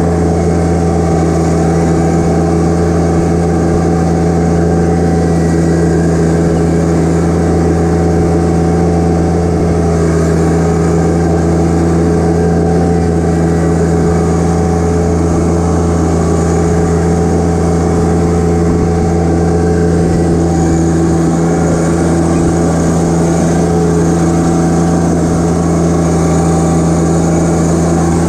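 John Deere 1025R compact tractor's three-cylinder diesel engine running steadily while the tractor drives along, heard from the driver's seat.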